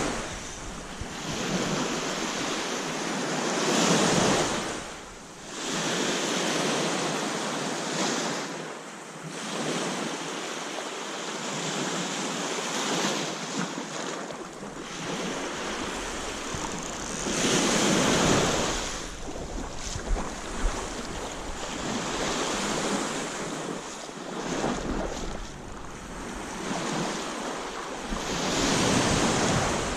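Waves washing onto a beach, with the surf swelling louder about three times, roughly every dozen seconds, and wind buffeting the microphone.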